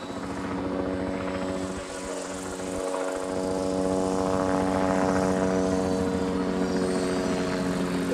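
Ikarus Eco 8 electric RC model helicopter flying: a steady, even-pitched whine from its electric motor, gears and rotors, growing louder near the middle as it comes closer.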